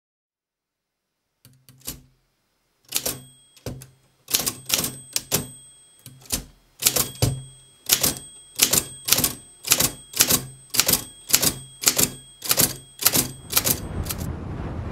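Typewriter keys striking one at a time with sharp clicks, each with a short metallic ring. The strikes come unevenly at first, then settle to about two a second. Near the end the rush of breaking surf comes in.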